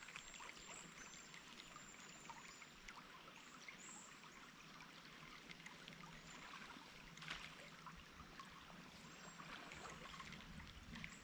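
Near silence with the faint, steady trickle of river water and a single small tick a little past the middle.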